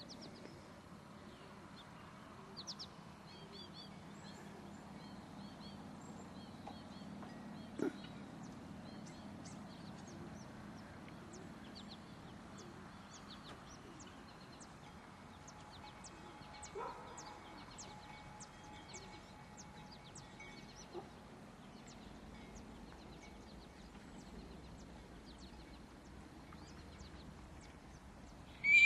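Quiet farmyard outdoors with faint bird chirps repeating about twice a second and a few distant calls, plus an occasional soft knock.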